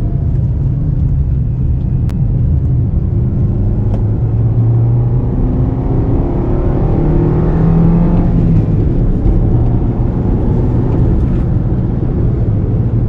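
A small 1100 cc petrol car engine, heard from inside the cabin while driving; its note rises midway as the car accelerates, then drops back. The sound is sporty, like a sports car's.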